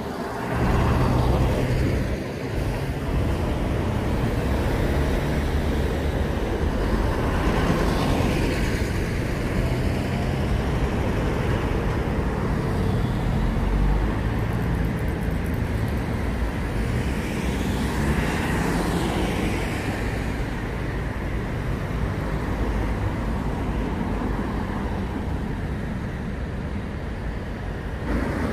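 Steady motor-vehicle noise: a low engine drone under road noise, swelling a few times as something passes close.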